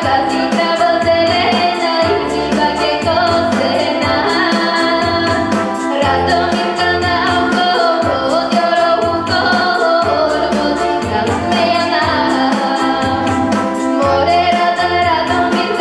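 Bulgarian folk dance music for a horo: singing over a steady, even beat.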